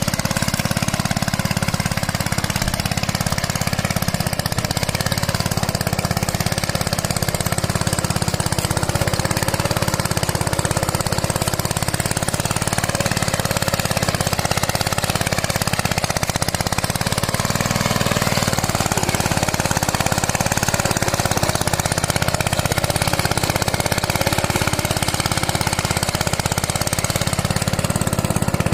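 Small two-wheel hand tractor's engine running steadily under load with a rapid knocking beat, pulling a mouldboard plough through grassy ground.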